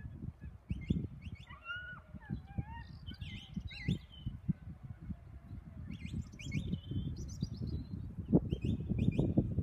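Small birds chirping in quick short notes, with a few gliding calls about two seconds in, over a louder, irregular low rumble and thumps.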